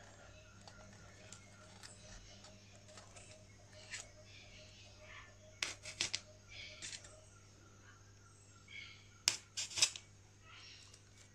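Faint handling noise of fingers working paper mounting strips and pins on a styrofoam board, with a few sharper clicks about four, six and nine to ten seconds in, over a low steady hum.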